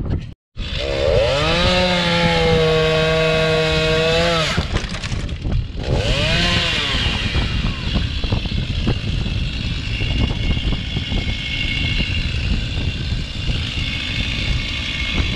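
Two-stroke chainsaw revving up to a high steady pitch and dropping back, revving again, then running under load as it cuts into dry, dead pine.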